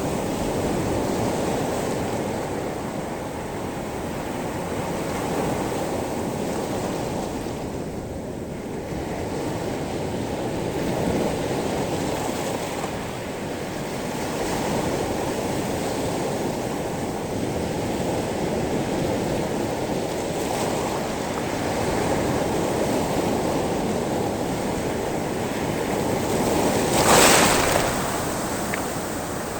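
Sea waves washing over a pebble beach: a steady rushing that swells and eases gently, with one brief, louder surge near the end.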